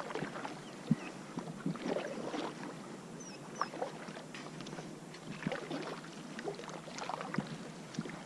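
Lake water lapping and splashing against a plastic kayak's hull as it moves along, in a steady wash with many small irregular splashes and knocks.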